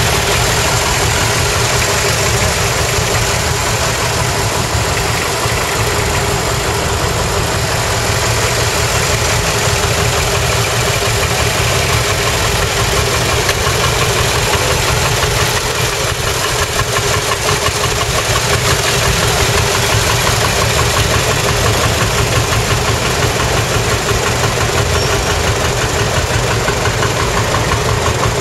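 Several tractor engines idling together close by, a steady, rapid, even chugging that does not change.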